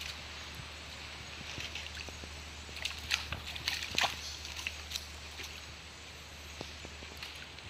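Scattered small splashes, drips and light clicks as a cast net is hauled up with shrimp, over a steady low hum.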